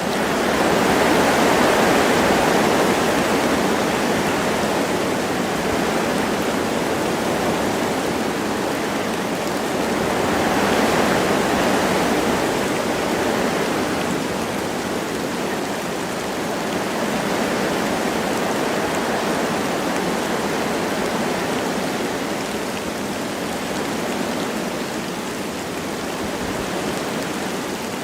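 Wind blowing through forest trees with light rain falling: a steady rushing that swells in gusts about a second in and again around ten seconds in.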